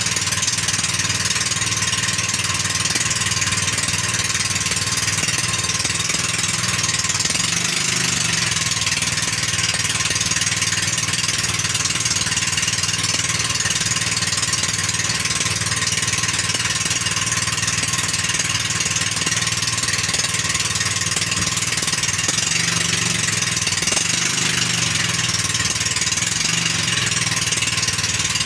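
A small fishing boat's engine running steadily, an even drone with no change in speed.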